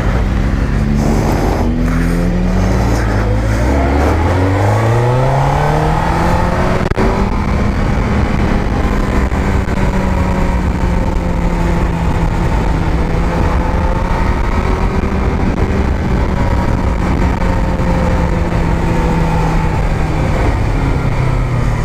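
Sport motorcycle engine heard close up from on the bike, accelerating through a couple of quick gear changes in the first seconds and revving up steeply, then holding fairly steady revs for most of the time before the pitch drops near the end as it slows. Wind noise runs underneath.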